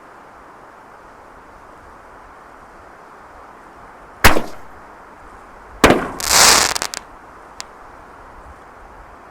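5-inch willow canister fireworks shells going off. There is a sharp bang about four seconds in, then another bang about a second and a half later, followed by nearly a second of loud hissing crackle that dies away with a few snaps.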